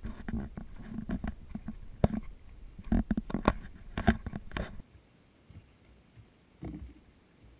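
Footsteps on a dirt trail mixed with knocks and rustling from a carried camera, an irregular run of thumps that drops away about five seconds in, leaving faint rustling of brush.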